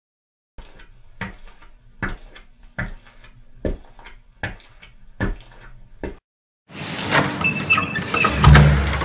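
Seven evenly spaced thuds, about one every 0.8 seconds, over a faint low hum, then a louder rushing noise that swells over the last two seconds.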